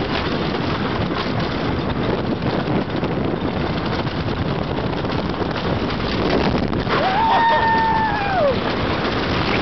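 Wind rushing over the microphone and the rumble of a wooden roller coaster train running at speed on its track. About seven seconds in, a rider's long high yell rises, holds and falls away.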